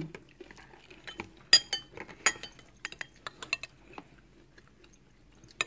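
Metal cutlery clinking and tapping against plates and plastic food tubs: light scattered taps, with a few sharper ringing clinks around the second and a half to two and a half seconds in.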